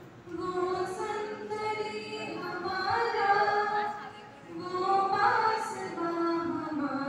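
A group of voices, mostly female, singing a song together without instruments, with long held notes.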